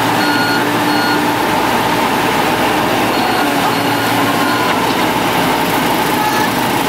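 Heavy diesel machinery running steadily, with an electronic warning beeper sounding about twice a second; the beeping stops after the first second and comes back for a spell a little past the middle.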